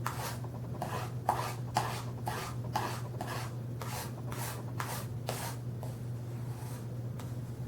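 Knife blade scraped in quick, even back-and-forth strokes on a sharpener, about three strokes a second, as a dull edge is sharpened. The strokes turn fainter about five and a half seconds in.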